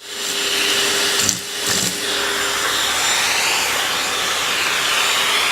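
Vacuum cleaner running steadily: a loud airflow hiss with a motor whine that drifts slowly up and down in pitch. Two short low sounds break in over it a little over a second in.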